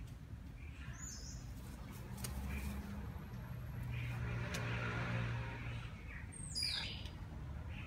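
Street ambience: a low engine hum that swells and fades in the middle, like a vehicle passing, with a short high bird chirp about a second in and a quick falling chirp near the end.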